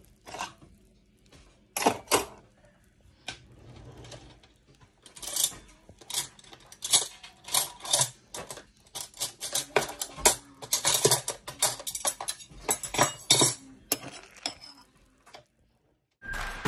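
Metal spoon clinking and scraping in a bowl of cereal and milk: a run of irregular sharp taps, closer together in the middle, stopping shortly before the end. Music starts right at the end.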